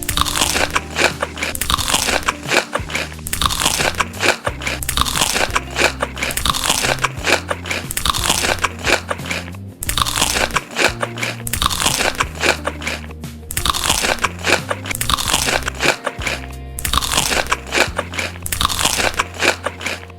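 Close-miked, loud crunching and chewing of crisp food, bite after bite, in runs broken by brief pauses every few seconds, over background music with steady low notes.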